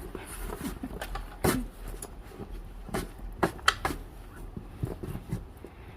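Irregular scrapes and knocks of a snow shovel working through deep snow, with a few sharper hits about a second and a half, three and three and a half seconds in.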